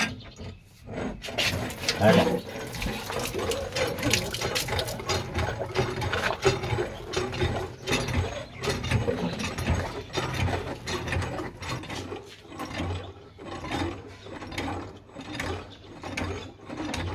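Continuous run of quick metallic clicks and clanks from work on a hand pump (nalka) and its pipe fittings as it is being replaced.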